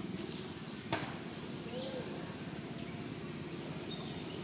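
Outdoor ambience: a steady low rumble with a few faint, short high chirps and one sharp click about a second in.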